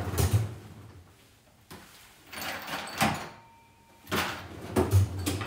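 Freezer door or drawer opened and shut while a chilled wine glass is taken out, heard as knocks and rustling in three short bursts.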